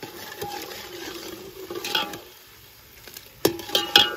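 A long metal ladle stirs chopped onions frying in oil in a large metal pot over a wood fire, with a steady sizzle. The ladle scrapes and knocks against the pot several times, loudest near the end.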